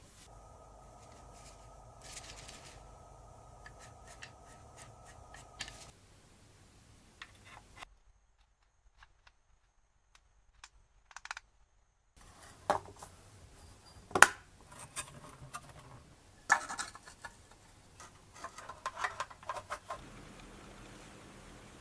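Sharp clicks, taps and light scraping of small parts and hand tools being handled. A faint steady hum runs for the first few seconds, and there is a near-silent gap in the middle.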